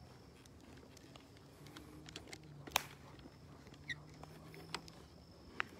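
Faint night ambience: a cricket's steady high trill, with a few scattered clicks and scuffs of footsteps on a dirt road, one sharper click about halfway through.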